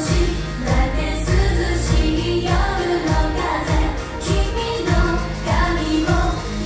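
Japanese idol-pop song: a girls' group singing over a pop backing track with a steady heavy beat.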